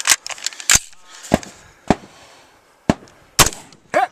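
A Rock River Arms LAR-15 AR-15 rifle making about seven sharp cracks and metallic clacks, unevenly spaced over four seconds.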